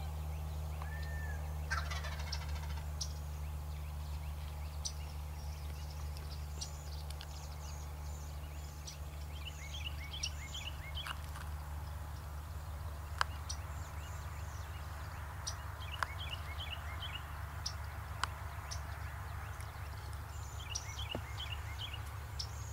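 Osceola wild turkey gobbler gobbling three times, each gobble a quick rattling run of notes, about ten, sixteen and twenty-one seconds in, over a steady low hum.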